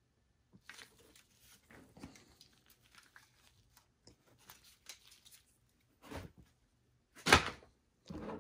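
Gloved hands handling a graphics card in the foam lining of its cardboard box: faint rustling and scuffs, then a louder, short cardboard scrape about seven seconds in as the box lid is put on.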